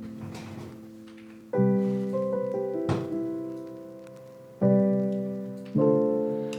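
Soft background piano music: slow chords struck about every second and a half, each ringing and fading away. A brief faint scrape about three seconds in.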